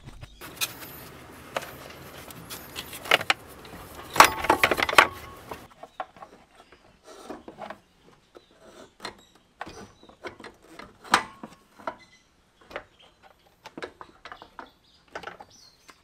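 Hand work on a scooter's metal parts and tools: a stretch of scraping and rustling with clinks that stops suddenly about five seconds in, then scattered light clicks and knocks.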